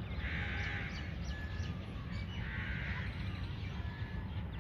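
Two harsh crow caws about two seconds apart, over a steady low background rumble.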